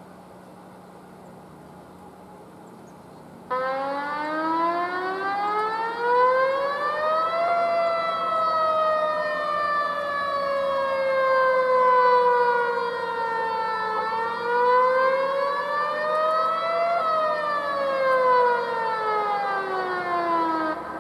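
Homemade outdoor warning siren sounding a slow wail. The tone cuts in about three and a half seconds in, rises for about four seconds, falls slowly, rises again and falls, then stops near the end.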